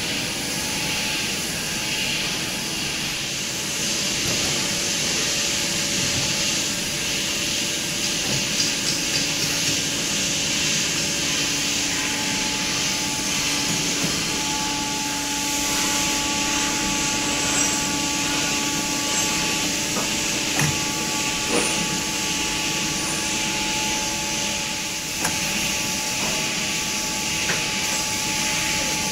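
Factory floor noise: a steady hiss with faint machine hums underneath and a few short knocks about two-thirds of the way through.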